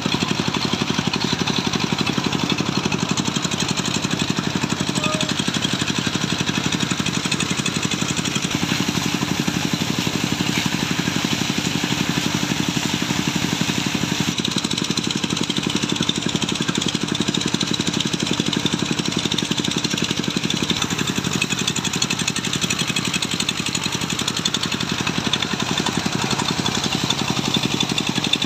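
Small engine-driven water pump running steadily, with the hiss of the high-pressure jet from its hose spraying into the mud pit.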